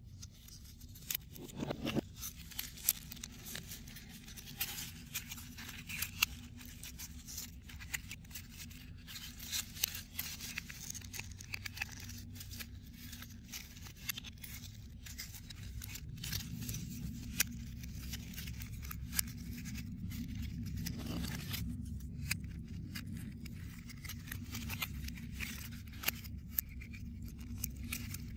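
Small 3D puzzle pieces of paper-laminated foam board being handled and pushed into their slots by hand: irregular small clicks, scrapes and rustles. Under them is a low steady hum that gets louder about halfway through.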